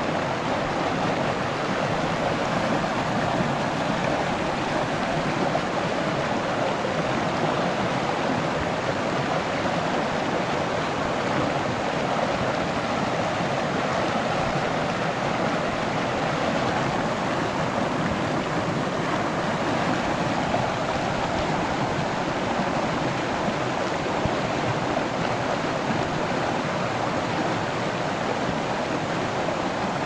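Shallow rocky mountain stream rushing and splashing over boulders in a steady, unbroken rush of water.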